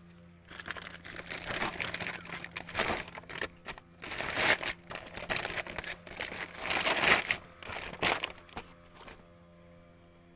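Crinkling, rustling noise close to the microphone in irregular bursts for about eight seconds, starting about half a second in, loudest about four and a half and seven seconds in.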